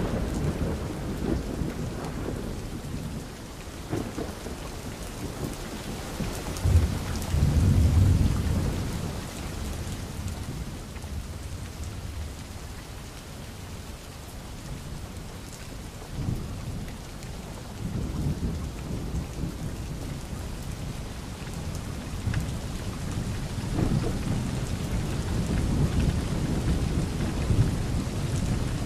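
Steady rain with low rolls of thunder swelling and fading several times, the loudest about seven to nine seconds in.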